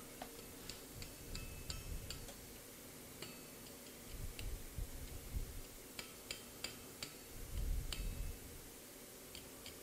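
Hand hammer tapping a glowing 8 mm round mild steel bar against the anvil in light, irregular blows, each with a brief high metallic ring, as the end of the bar is rolled up into a spiral.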